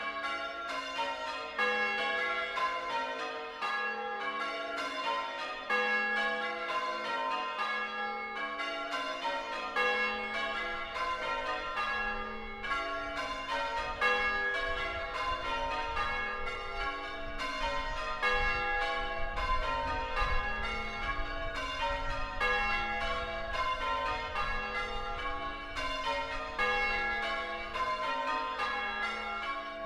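A ring of six church bells, tenor about 8 cwt in A-flat, rung full-circle in changes. The strokes follow one another in a steady, even rhythm, and each bell's tone rings on into the next.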